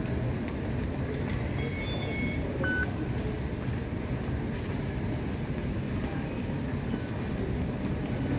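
Steady low rumble of an underground metro station concourse, with a few short high electronic beeps from the fare gates between one and three seconds in.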